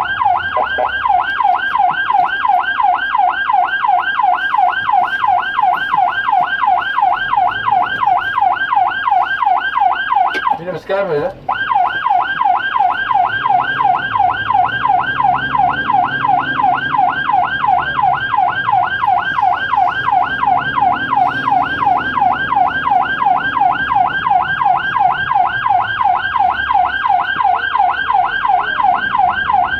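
Ambulance siren on a fast yelp, a rapid rising-and-falling wail repeating several times a second, heard from inside the cab. It cuts out for about a second near the middle, then starts again.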